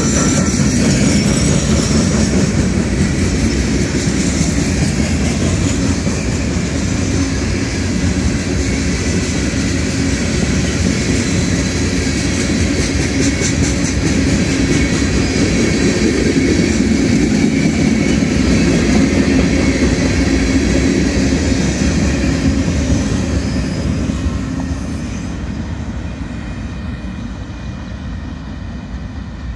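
Norfolk Southern freight train rolling past at close range: steady wheel-on-rail rumble and clatter as covered hoppers and tank cars go by. It grows somewhat quieter over the last few seconds.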